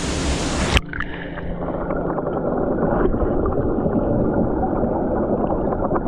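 Rushing waterfall water that, a little under a second in, abruptly turns muffled and dull as it is heard from underwater, with gurgling and small bubbly clicks.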